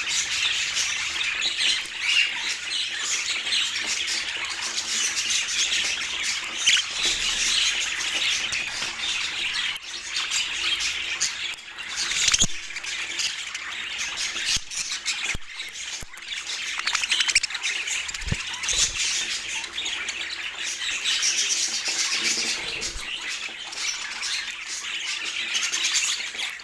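Several budgerigars chattering and warbling without a break, a dense mix of chirps and squawks, with a few sharp clicks in the middle.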